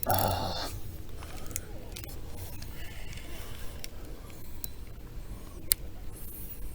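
Light clicks and small rattles of fishing tackle being handled in a kayak, starting with a brief rustle and with one sharp click near the end.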